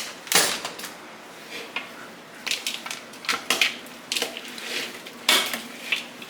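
A utensil stirring thick chicken salad in a bowl: irregular scrapes and clacks against the bowl with wet squishing from the mixture.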